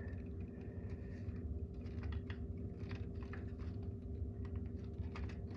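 Light, irregular plastic clicks and taps of handling as the 9-volt battery is fitted back into a Honeywell smoke alarm, over a steady low hum.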